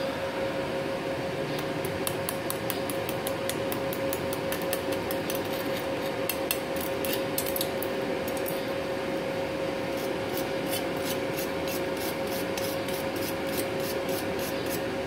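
Steel wire brush scrubbing slag off fresh arc-weld beads on a steel plate, in quick rhythmic strokes about three to four a second. The strokes pause briefly a little past the middle, and a steady hum runs underneath.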